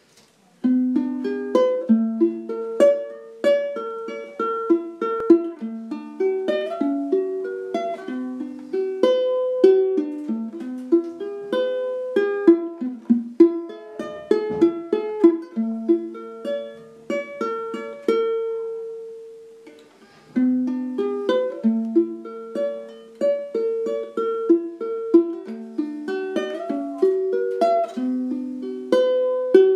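Background music: a plucked string instrument picking out quick single notes in a melody with no bass. About 18 seconds in it rests on one held note that dies away, then the picking starts again about two seconds later.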